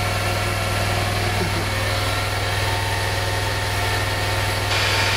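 Engine-driven machinery of a bead cavity-wall insulation injection rig running steadily: a low hum with a fast, even beat. A hiss rises over it near the end.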